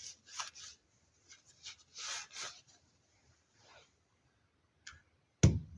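Paper towel rubbing and scrunching against a tap's brass stem as it is wiped clean: a few soft, scratchy swishes, the strongest about two seconds in. A short thump near the end.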